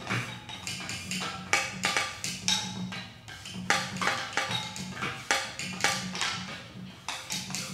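Hand-thrown ceramic pot drum struck with a stick and a paddle by two players: a quick, interlocking pattern of sharp taps, several a second, over a low ring from the pot's body.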